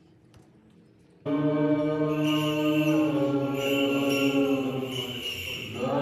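Orthodox church chanting, long sustained notes, starting abruptly about a second in after a near-quiet moment.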